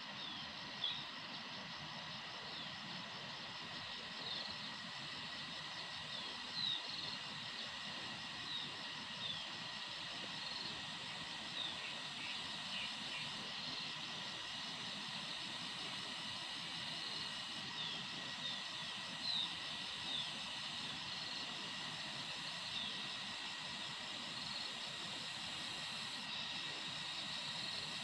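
Steady insect drone in the trees, with scattered short, falling high chirps from small birds.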